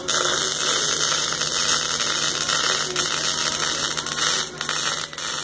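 MIG welding arc burning steadily on a steel bracket: a continuous crackling hiss.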